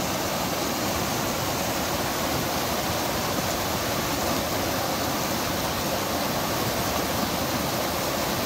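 Mountain creek rushing in small cascades over granite slabs: a steady, unbroken rush of white water.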